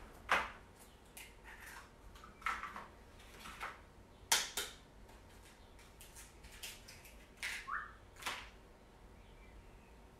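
Scattered light clicks and taps of eggshells knocked together, cracked and handled over a bowl of melted chocolate. A brief rising squeak comes just before 8 seconds in.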